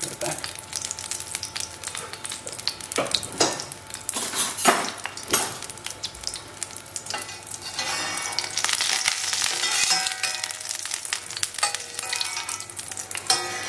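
Butter sizzling and crackling in a pan as its water boils off during clarifying, with a metal spoon stirring and skimming off the foam. The crackle is louder for a couple of seconds past the middle.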